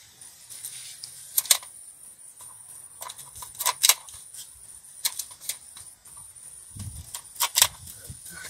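Hand pruning shears snipping green grapevine shoots: four sharp double clicks, about every two seconds, as the blades close and spring open.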